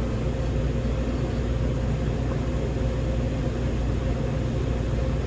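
Gas furnace running: a steady low hum from its fan motors over an even rush of air, with a faint steady whine.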